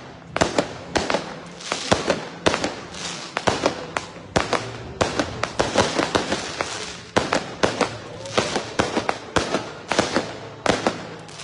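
A long string of firecrackers going off, sharp bangs in quick, irregular succession, several a second, each with a short echo.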